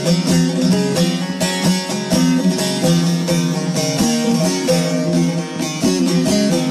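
Instrumental Turkish folk music (türkü): a plucked string instrument plays a quick, busy run of notes over a steady lower accompaniment.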